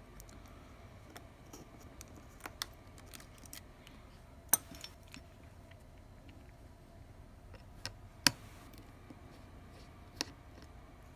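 Small repair tools and phone parts clicking and tapping during iPhone SE disassembly: scattered sharp clicks, the two loudest about four and eight seconds in.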